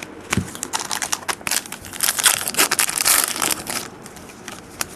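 Trading card pack wrapper crinkling and rustling as it is handled, a dense irregular crackle that is busiest in the middle.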